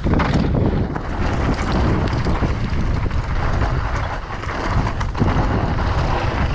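Wind buffeting the camera's microphone, a steady low rushing noise, over the crunch and rattle of a downhill mountain bike's tyres rolling along a rocky dirt trail.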